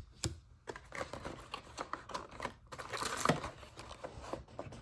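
2024-25 NBA Hoops trading cards being handled and flipped through by hand: a steady string of light clicks, taps and rustles as the cards slide against one another.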